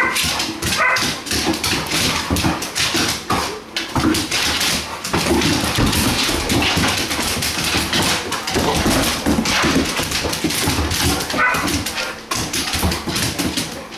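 Dogs' claws clicking and scrabbling on a hardwood floor as they pounce on a moving light spot, with short whines now and then, one about a second in and another near the end.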